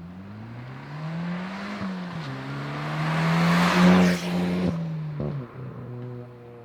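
Hyundai i20N's turbocharged 1.6-litre four-cylinder accelerating past. The revs climb, dip briefly at a gear change about two seconds in, then hold as the car passes, loudest about four seconds in. The engine note drops off after about five seconds.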